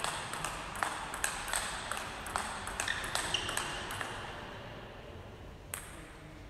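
Table tennis rally: the ball clicking quickly back and forth off bats and table several times a second. The clicks stop about four seconds in, and there is one more single knock near the end.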